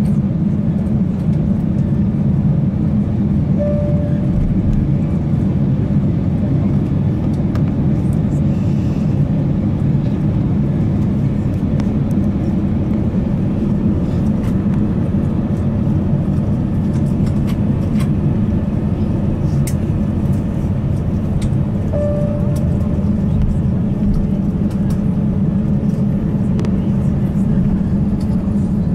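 Steady low rumble inside the cabin of an Airbus A350-900 taxiing, its engines at taxi power and its wheels rolling along the taxiway.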